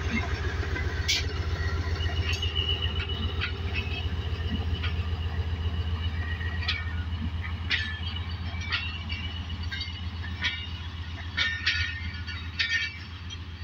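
Pakistan Railways ZCU-30 diesel-electric locomotive pulling away with a passenger train: a steady low engine drone that slowly fades. Sharp metallic clicks and clanks from the wheels and running gear come more often near the end.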